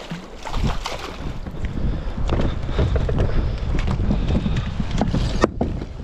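Wind buffeting the microphone on a small boat, a heavy low rumble, with scattered sharp clicks and knocks.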